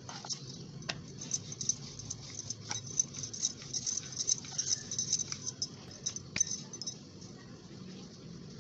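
Light, irregular clicks and taps from shaping and pressing stuffed atta dough by hand on a board, several a second.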